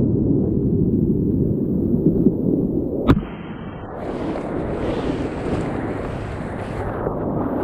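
Whitewater rapids rushing around a kayak, deep and muffled for the first three seconds. A sharp click comes about three seconds in, after which the rush is quieter and reaches higher in pitch.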